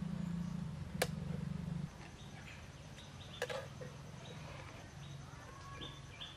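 A metal spoon stirring roasting red ants in a metal pan, with two sharp clinks of spoon on pan, about one second and three and a half seconds in. A low steady hum cuts out about two seconds in, and birds chirp in short calls after that.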